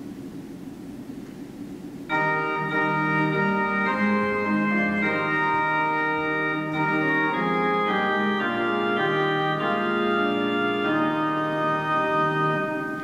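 Church organ playing the introduction to the closing hymn. It comes in about two seconds in with sustained chords that change every second or so, after a faint hum of room noise.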